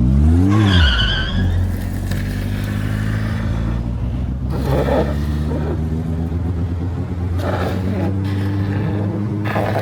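Car engine starting with one quick rev that rises and falls, then running steadily at a low, even pitch.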